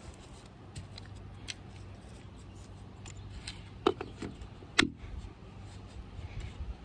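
Plastic drain grates clicking and knocking as an old grate is lifted out of a round lawn drain and a new one is set into the opening and pressed into place. Scattered light clicks, with two sharp clicks about four and five seconds in.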